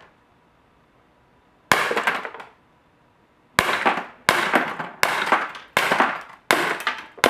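Daisy Winchester Model 11 CO2 semi-auto blowback air pistol firing BBs, each shot instantly followed by a Daisy Shatterblast breakable target shattering. Seven shots: one about two seconds in, then six in quick succession, roughly two-thirds of a second apart.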